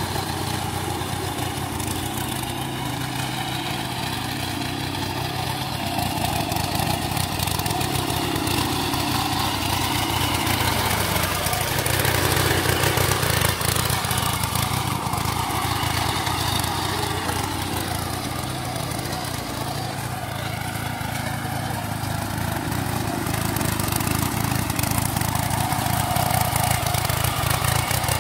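Small walk-behind power tiller's engine running steadily as its rotary tines work through wet paddy mud, its pitch and loudness wavering, loudest about halfway through and again near the end.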